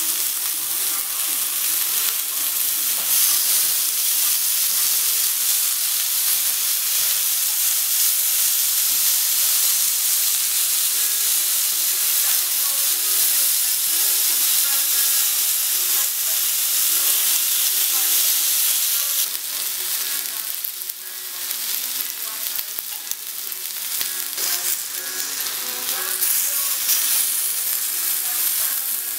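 Thin slices of beef and pork belly sizzling on the non-stick domed grill plate of an electric tabletop Thai grill and hot pot (mu kratha), cooking without added fat. The sizzle is steady and loud and dips briefly about twenty seconds in.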